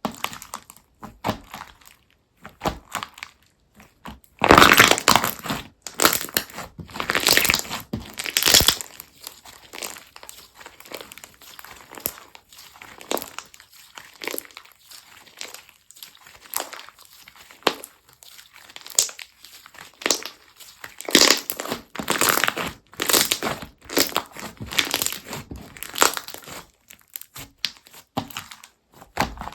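Textured slime being squeezed and pressed by hand, its crunchy add-ins crackling and popping in dense runs of small crackles. The crackling swells louder for a few seconds about four seconds in and again past twenty seconds.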